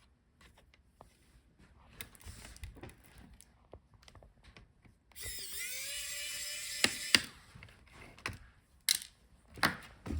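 Small electric screwdriver running for about two and a half seconds, its whine rising briefly and then holding steady as it backs out a laptop screw. Light clicks and taps from handling parts come before and after it.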